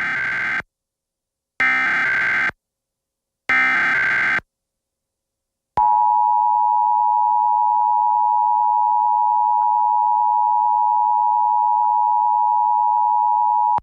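Emergency Alert System broadcast: three one-second bursts of SAME digital header data about two seconds apart. Then, about six seconds in, the steady two-tone EAS attention signal (853 and 960 Hz) starts and holds without a break.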